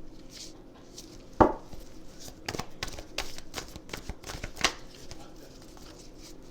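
Tarot cards being handled and laid down on a table: a run of light taps and clicks, with one louder knock about a second and a half in.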